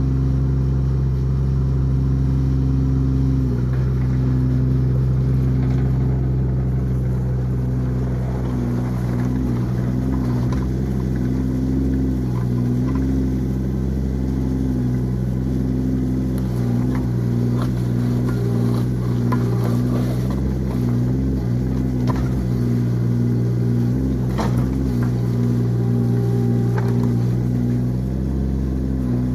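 Mini excavator's diesel engine running steadily, its note dipping briefly again and again as the hydraulics take load, with a few sharp knocks and clanks.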